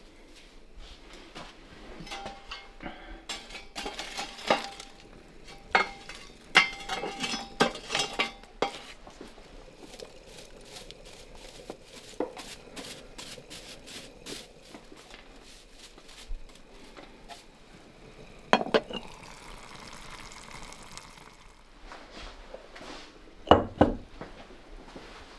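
Metal utensils and cookware clinking, knocking and stirring: a quick run of clatter in the first several seconds, then scattered small knocks, with two louder clinks later on.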